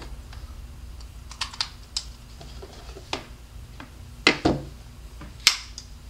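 A scattering of short sharp clicks and knocks from an iPod being unplugged from its cable and handled, the loudest about four and five and a half seconds in.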